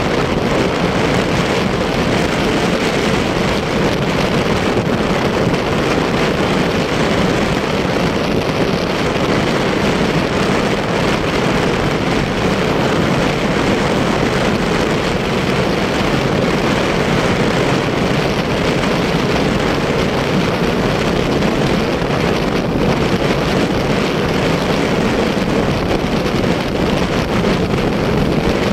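Steady rush of wind on the microphone, mixed with engine and road noise from a motorcycle riding at speed.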